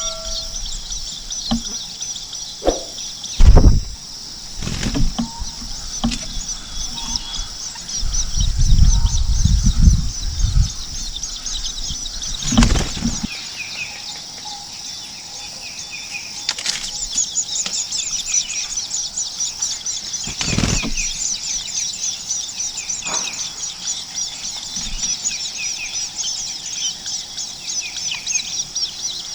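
Baby birds in the nest chirping in a fast, high-pitched begging chatter that becomes dense and continuous in the second half. Several loud low thumps and a rustling rumble break in during the first half, the loudest a few seconds in.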